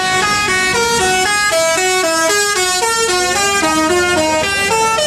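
Bus telolet horn, a set of musical air horns playing a quick tune of short stepped notes, several notes a second, without a break.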